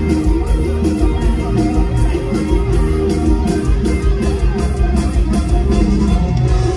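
Live band music over a stage sound system, loud, with a steady driving drum beat and plucked guitar; an instrumental stretch with little or no singing.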